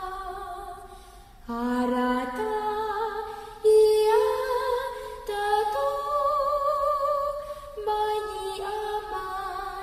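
A group of voices singing unaccompanied in harmony, in a Tahitian song of long held notes. The song moves in phrases that change every second or two, with a wavering top voice about midway.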